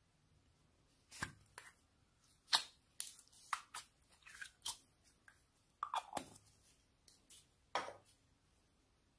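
Thin clear plastic slime cup clicking and crackling as it is handled, opened and squeezed, in an uneven string of sharp clicks and crinkles over several seconds.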